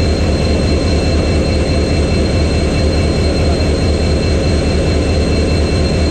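EMD 16-710 two-stroke V16 diesel of a WDP-4B locomotive idling with a steady, deep pulsing hum, a few thin steady whines riding over it.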